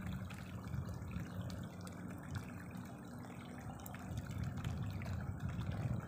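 Wind buffeting the microphone in open fields: a low, uneven rumble that swells and eases.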